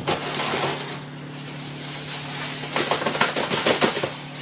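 Packaging being handled and unwrapped, a crackling rustle in two spells, the second busier.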